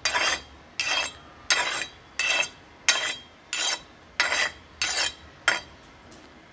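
A large steel knife blade stroked across a round sharpening stone: nine even scraping strokes, about one every 0.7 seconds, that stop shortly before the end.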